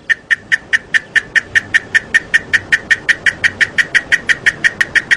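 Cicada song as a sound effect: a steady run of sharp, evenly spaced ticks, about five a second, the first phase before the call runs together into a continuous buzz.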